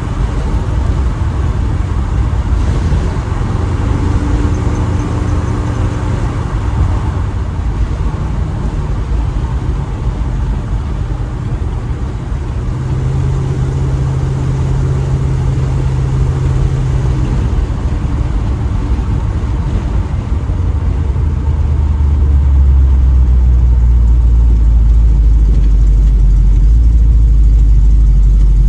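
Small-block Chevy 350 V8 running through a new exhaust while driving, with the engine pitch holding and shifting as speed changes. About three quarters of the way in it turns deeper and louder.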